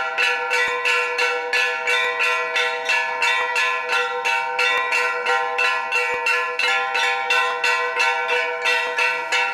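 A metal bell struck rapidly and evenly, about four strikes a second, each strike ringing on so the tones overlap into a continuous clangour.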